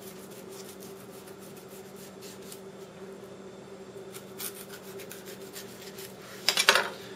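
Chef's knife scoring the skin and flesh of a whole pompano on a wooden cutting board: faint slicing and scraping with a few light clicks of the blade, the loudest cluster near the end.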